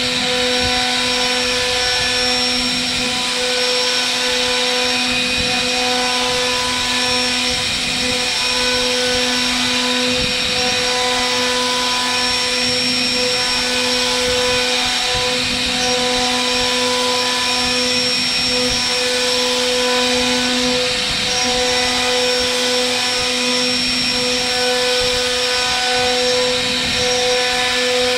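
CNC router spindle running with a steady whine made of several tones while its bit cuts a groove into a wooden door panel, with a hiss of cutting noise over it.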